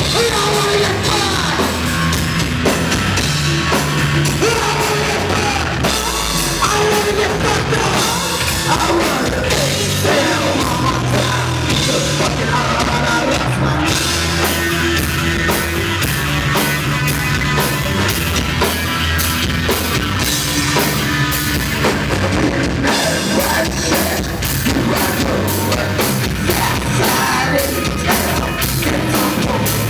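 Loud live rock band playing: distorted guitars and bass over a pounding drum kit, with vocals here and there. The drumming turns to fast, even strikes in the last several seconds.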